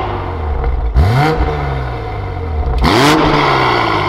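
Toyota GR Supra's turbocharged 3.0-litre inline-six idling through a catless Fi Exhaust valvetronic system with the valves opened by remote. The engine is blipped twice, about a second in and again near three seconds in. Each rev rises sharply and then falls back to idle.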